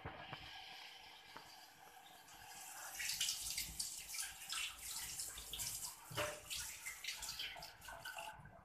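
Small whole fish in a shallow pool of liquid heating in an aluminium wok: a crackling, sizzling hiss that builds about three seconds in and cuts off shortly before the end.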